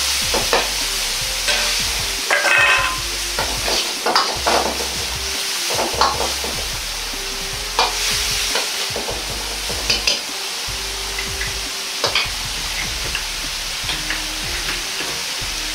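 Ground pork and vegetables sizzling in a carbon-steel wok with a little water just added, under a steady hiss. A metal ladle scrapes and clanks against the wok at irregular moments, one strike ringing briefly about two and a half seconds in.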